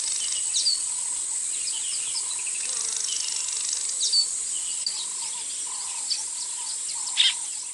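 Outdoor evening chorus of a steady high insect trill with scattered bird calls. A short, sharp whistled note is heard twice, about three and a half seconds apart, and a louder call comes near the end.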